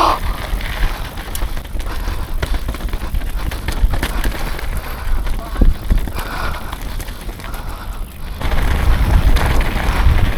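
Mountain bike being ridden down a rough dirt trail: a continuous rattle with many small knocks over bumps, and wind rumbling on the camera microphone. The sound drops briefly near the end, then comes back louder.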